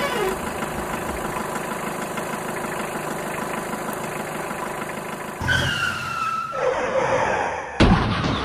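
A vehicle engine sound effect running steadily, then a falling whistling tone about five and a half seconds in and a sharp bang near the end.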